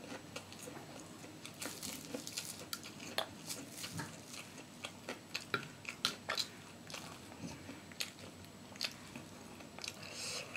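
A person chewing and biting crunchy food, with many short, irregular crunches.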